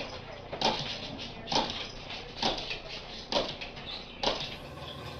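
A dog jumping up and down on a tiled kitchen floor, with a short sharp sound at each jump, evenly spaced a little under a second apart, five in all.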